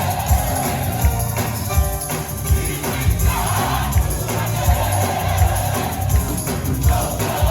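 Gospel choir singing with a live band, held sung notes over a steady beat.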